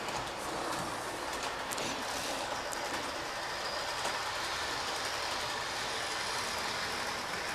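HO-scale model train running around a circle of track: the steady running noise of its small electric motor and wheels on the rails.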